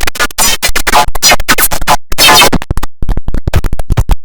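IBM OS/2 Warp 3 shutdown sound put through stutter effects, chopped into rapid repeated fragments with scratch-like cuts that stop and start many times a second.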